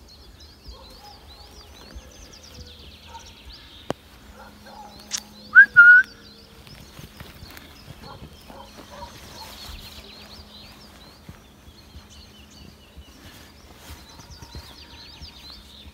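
Small birds chirping and singing in the background, with two short, loud whistles from a person about five and a half and six seconds in, calling a horse.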